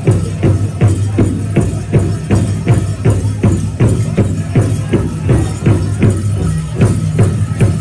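Powwow drum group playing: a large drum beaten in a steady, even beat of about four strikes a second, with voices singing over it.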